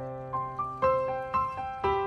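Background instrumental music: a slow melody of struck notes that ring and fade, about two a second.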